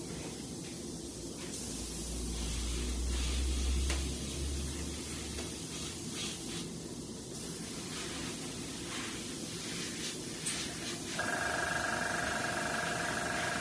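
Paint spraying with a steady hiss. About eleven seconds in a steady machine hum with a few even tones starts up.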